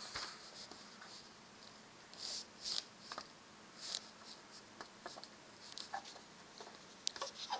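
Faint, short scratchy strokes of a marker drawing on a white easel board, a few of them with pauses between; a soft knock right at the start.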